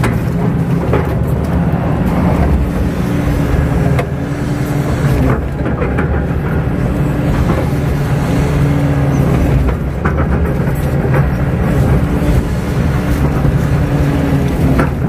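KATO crawler excavator's diesel engine running steadily under working load, its pitch stepping up and down as the load changes, with a few scattered knocks.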